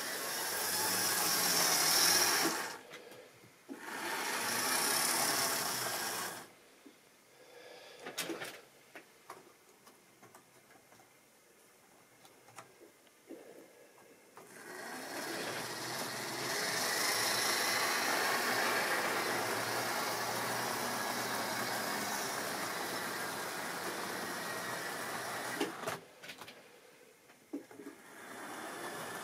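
Tri-ang model railway trains running on the track, their small electric motors and wheels making a steady whir. The whir stops and starts: it runs in two short spells, falls away for several seconds with a few sharp clicks, runs steadily again for about ten seconds, then stops with clicks and starts up again near the end.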